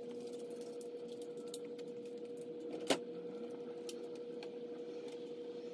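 Steady hum at one constant pitch, with faint scattered ticks and one sharper click about three seconds in.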